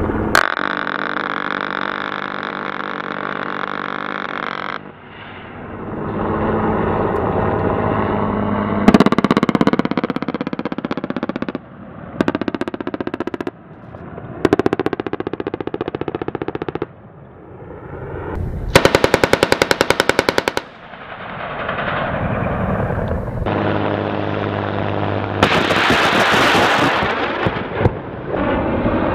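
Helicopter-mounted machine guns firing long bursts of very rapid automatic fire, with tracer rounds. There are several bursts of a few seconds each, starting and stopping abruptly one after another, with a distinctly rattling burst about two-thirds of the way through.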